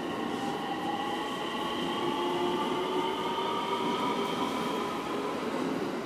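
Electric train's traction motors whining, several tones rising slowly in pitch as the train picks up speed, over the rumble of the wheels on the rails.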